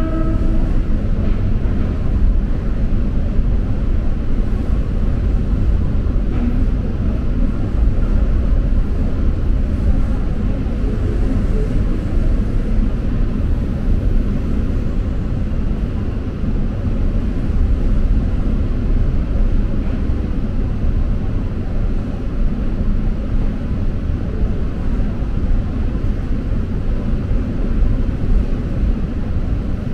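Steady low rumble of a moving passenger train, heard from inside the carriage. A horn's last note fades out in the first second.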